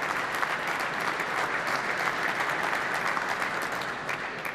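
Audience applauding steadily, many hands clapping together, easing off a little near the end.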